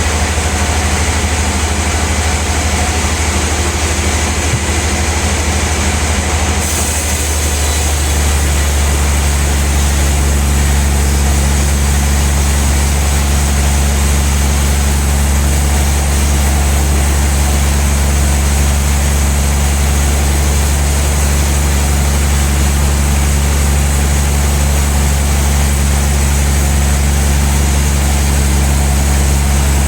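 Sawmill band saw running with a steady, loud low hum. About seven to eight seconds in, the sound thickens and grows slightly louder, then holds steady.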